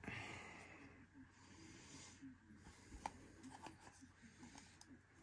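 Faint rustling of hands handling a trading card and its packaging, with a few small clicks in the second half.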